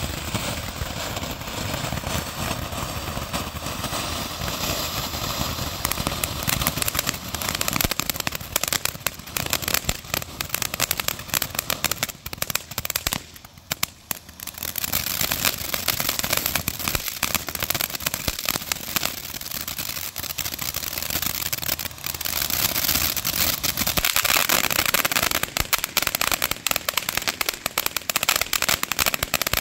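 Consumer ground firework fountains spraying sparks: a steady hiss thick with dense crackling. There is a short lull about halfway through as one fountain burns out and the next takes over.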